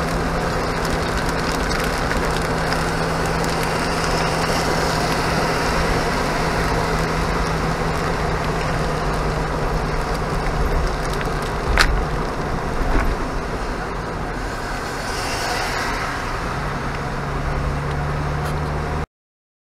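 A Jeep driving on a wet road in the rain, heard from inside the cab: a steady engine hum under an even wash of tyre and rain noise, with one sharp click about twelve seconds in. The sound cuts off suddenly near the end.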